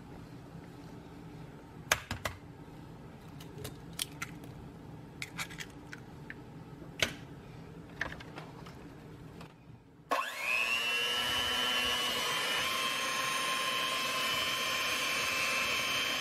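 A few sharp taps and knocks as the last egg is cracked against the bowl. About ten seconds in, an electric hand mixer starts up: a whine that quickly rises to a steady pitch, then runs on evenly as it beats the egg into the sweet potato pie filling.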